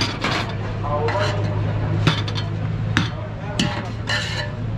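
Metal serving spoon clinking and scraping in a large aluminium cooking pot, with a steel pot lid and ceramic plates clanking as food is dished out: several sharp clinks about a second apart, over a steady low hum.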